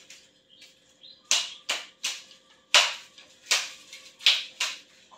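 A spoon or ladle clinking and knocking against the aluminium cooking pot and a plate while braised fish is scooped out to serve. The clinks come irregularly, about one a second.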